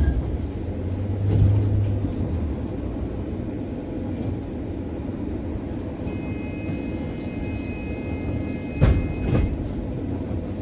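Inside a moving city bus: steady rumble of the engine and road, with a faint high whine from about six seconds in and two sharp knocks near the end.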